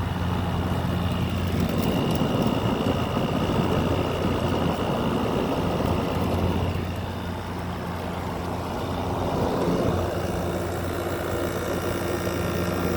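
2018 General Electric 6,000 BTU wall air conditioner running: steady compressor hum with the condenser fan blowing air over the coils. The compressor sounds a little louder because it is hot outside and pulling high head pressure, with the coils very hot.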